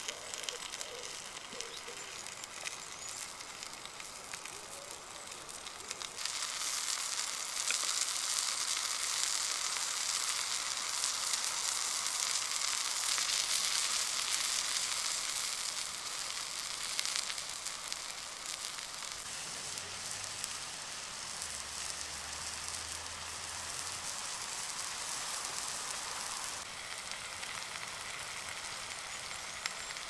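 Bacon frying in a pan over a campfire: a steady sizzling hiss with fine crackling, louder from about six seconds in until near the end.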